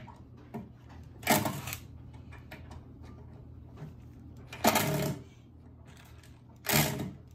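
Cordless drill run in three short bursts of about half a second each, about a second in, near the middle and near the end, trying to drive a screw into a wooden stud held overhead.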